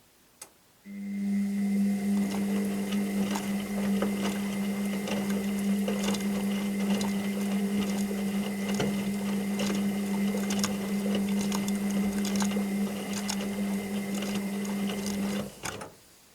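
Washing machine running its drum in the wash cycle. After a single click, a steady motor hum with a thin high whine starts. Light irregular knocks run under it, and it stops after about fifteen seconds.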